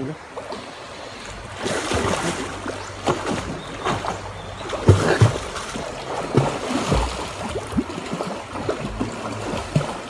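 Water splashing and sloshing around a small boat on a river, with irregular knocks and a few low thumps.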